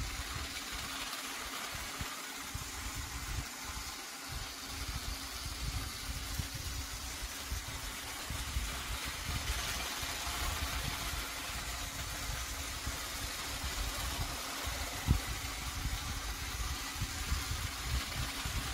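Trackmaster Bertram, a battery-powered motorized toy train engine, running: a steady electric-motor hum over an uneven low clatter. A single sharp click comes about fifteen seconds in.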